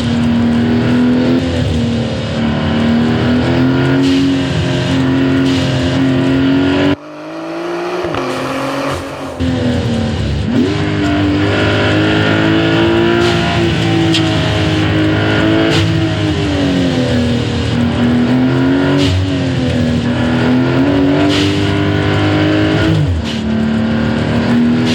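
Porsche 911 992.2 Turbo S turbocharged flat-six, with a performance exhaust, pulling hard, its note climbing and falling again and again as it runs through the gears. About seven seconds in the throttle is lifted: the engine drops away suddenly with a hissing release of boost pressure from the vent-to-atmosphere adapters. A couple of seconds later it climbs again with a quick rising rev.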